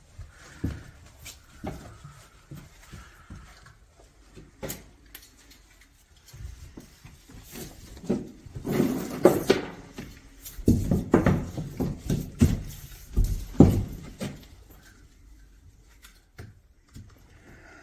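Clicks, knocks and rustling from hand work on a house breaker panel as thick service-entrance cables are handled and fitted into it. The noise is loudest in a stretch of scraping and rustling in the middle.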